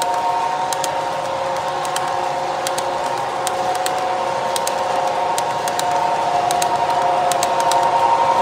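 O gauge model freight train rolling past close by: a steady whine with sharp clicks in irregular clusters as the cars' wheels cross the rail joints.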